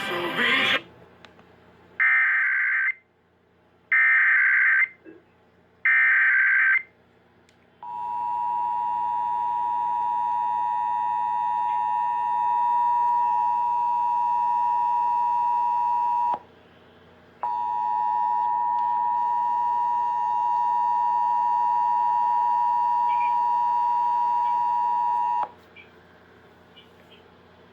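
Emergency Alert System header: three warbling data bursts about two seconds apart, followed by the two-tone attention signal held steady for about eight seconds. The signal breaks off for about a second, then sounds again for another eight seconds and stops. A brief burst of noise comes at the very start.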